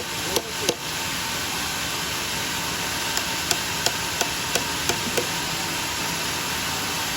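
Hammer knocking at nails in a durian log: two sharp knocks near the start, then a regular run of about three knocks a second from halfway in, over a constant background hum.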